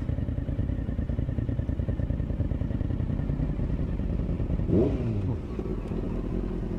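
Motorcycle engine running under way with a steady low pulse. About five seconds in there is a short louder burst of revs that falls away, and the engine then runs a little quieter.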